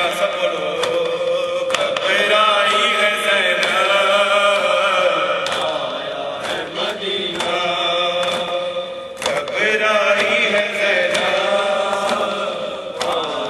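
A man chanting an Urdu noha (Shia lament) into a microphone: a slow, wavering melodic line held on long notes. A few sharp hits are heard behind the voice.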